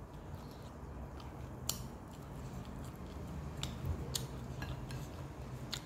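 Eating with the fingers from a plate: chewing, with a handful of sharp little clicks and smacks, about five in all, over a low steady hum.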